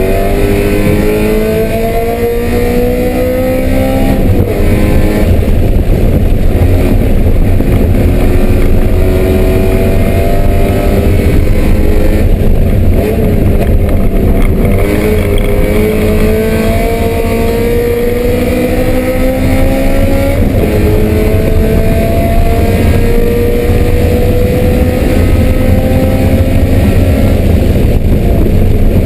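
BMW M3 race car engine under hard acceleration on track, its pitch climbing steadily through each gear and dropping sharply at several upshifts, over a heavy low rumble.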